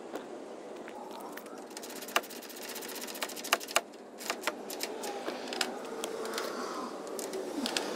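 Hand ratchet clicking in quick runs while driving in a grille mounting bolt, with separate clicks and taps in between.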